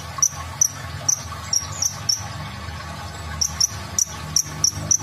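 Male kolibri ninja sunbird calling: a quick series of short, sharp, high chips in two runs, with a pause of about a second midway. A low, steady hum runs underneath.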